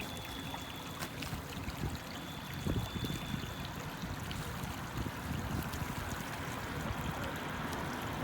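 Wet mud squelching and sloshing underfoot, a low continuous watery rumble with a click about a second in.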